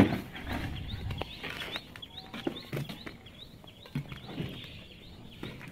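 A sharp knock right at the start, then faint birds calling: short rising chirps scattered through.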